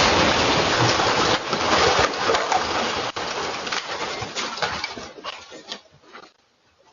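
The blast of a house explosion dying away, heard through a Ring doorbell camera's microphone. A loud, dense rumble with scattered sharp cracks fades over about six seconds and then stops.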